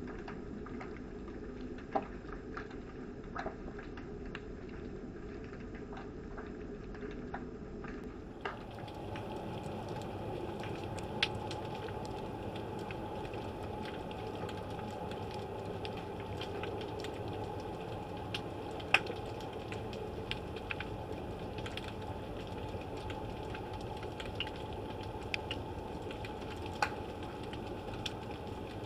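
Underwater ambient sound picked up by a submerged camera: a steady low rush with scattered sharp clicks and ticks, a few of them louder.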